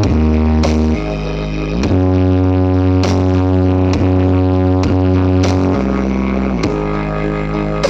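Bass-heavy music played loud through a large sound system during a sound check. Long, deep bass notes change pitch every second or two, some sliding down into the next note, with a few sharp percussive hits.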